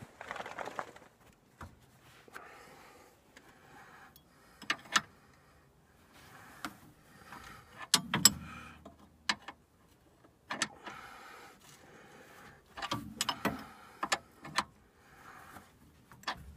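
Scattered metallic clicks and knocks from a sway bar link's bolt and hardware being worked into place by hand on a Jeep Cherokee XJ, in short irregular clusters with some rustling between them; no hammer blows.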